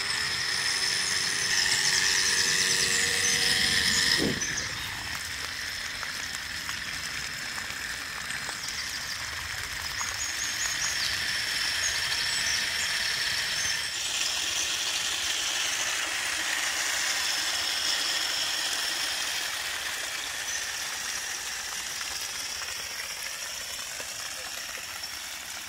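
Homemade centrifugal water pump driven by a 775 DC motor, running with a high motor whine. About four seconds in, the pitch dips and the sound gets quieter as the pump takes up water, and from then on water can be heard spraying from the outlet.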